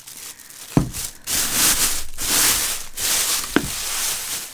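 Thin plastic bag rustling and crinkling as it is pulled off a plastic plant pot, with two sharp knocks, about a second in and near the end.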